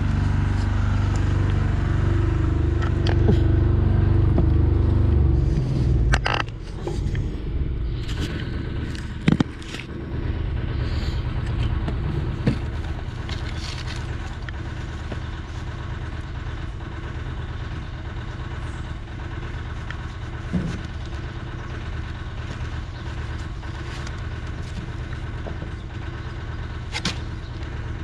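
An engine running steadily, louder for the first six seconds and then lower. A sharp knock comes about nine seconds in, with a few lighter knocks later.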